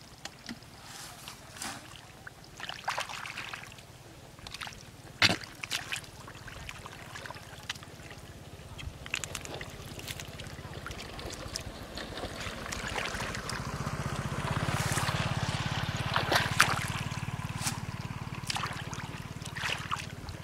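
Hands splashing and sloshing through shallow muddy water while feeling for fish in the mud, with scattered sharp splashes, the loudest about five seconds in. A low steady hum runs underneath, louder for a few seconds in the second half.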